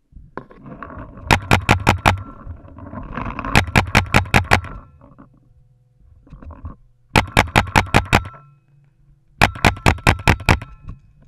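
Paintball marker firing close by in four quick strings of about six shots each, several shots a second. Rustling and scraping sounds run between the first two strings.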